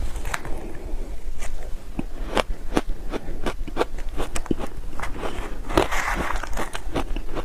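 Powder-coated shaved ice crunching between the teeth in a rapid run of sharp, crisp crunches. About three quarters of the way through, a metal spoon scrapes and scoops through the ice in a plastic tub.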